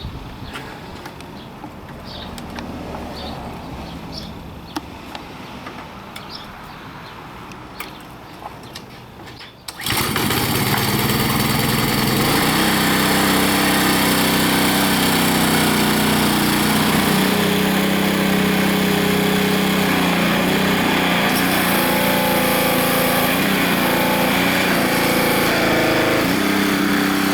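Pressure washer driving a 14-inch rotary surface cleaner over a concrete driveway. The machine comes on suddenly about ten seconds in and then runs loud and steady with a hissing spray, its motor pitch wavering slightly.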